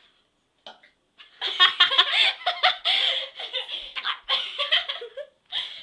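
Girls giggling and laughing hard in quick, high-pitched bursts, starting about a second and a half in and dying away near the end.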